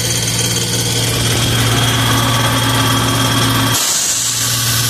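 Engine of a Sullivan portable screw air compressor running steadily under test after repair, with a high hiss over it; the sound breaks briefly near the end.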